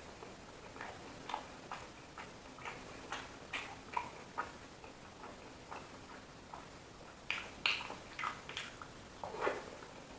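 Close-miked chewing and lip-smacking of someone eating, a steady run of short mouth smacks about two to three a second, with a few louder ones near the end.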